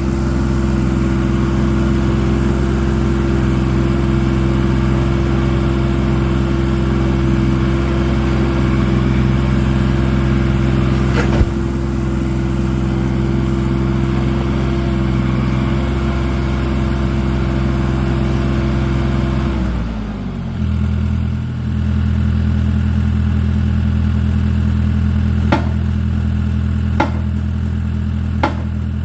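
Tractor engine running steadily at high revs, throttled down to a lower speed about twenty seconds in. A few sharp knocks sound over it, one in the middle and three more near the end.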